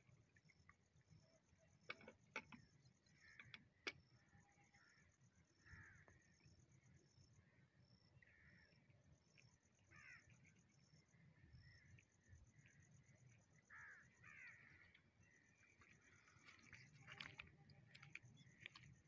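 Faint birds calling in short, repeated calls, over a high, evenly pulsed chirping that comes in runs of a few seconds, with a few sharp clicks about two and four seconds in.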